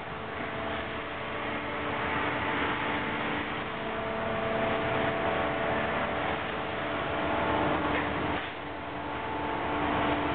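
Steady machinery din of a fishing vessel's bleeding and gutting station: a constant mechanical hum with several steady tones over a rushing noise, dipping briefly near the end.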